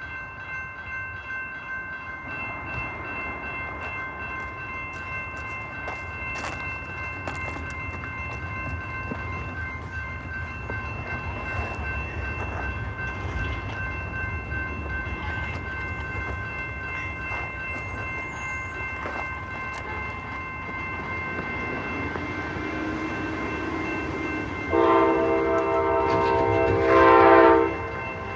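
A train rumbles nearer and grows slowly louder, with a steady high-pitched tone running throughout. Near the end, a locomotive horn sounds one long blast of about three seconds.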